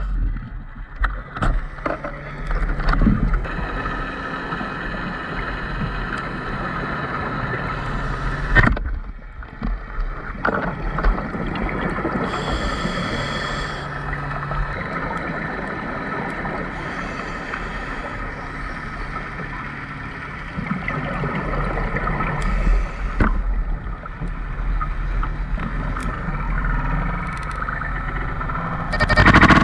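Underwater sound picked up through a diver's camera housing: the steady hum of a boat engine carried through the water, with a few sharp knocks.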